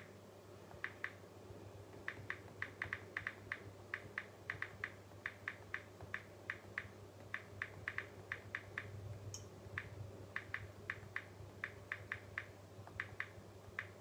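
Light, irregular clicks of fingers tapping on a smartphone screen, roughly two or three a second with short pauses, over a steady low electrical hum.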